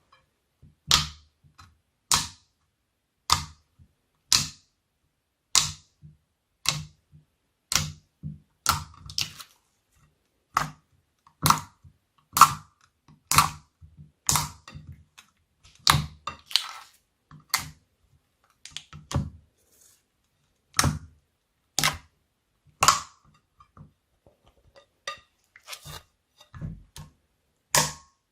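Slime being pressed and worked by hand, giving sharp popping clicks about once a second, some coming in quick pairs.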